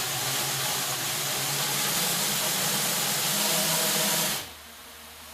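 Brushless motors and propellers of a 3D-printed quadcopter spinning at speed: a steady whir with a loud rush of air from the props. About four seconds in it drops sharply to a much quieter hum as the throttle is pulled back.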